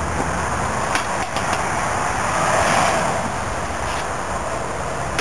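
Street traffic noise, with a car going past and swelling a little about two to three seconds in, and a couple of short clicks around a second in.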